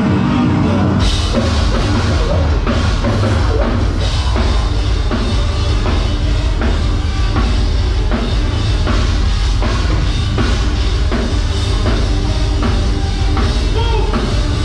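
A heavy metal band playing live, drum kit driving a loud, dense mix. The full band comes in harder about a second in, with steady regular drum hits after that.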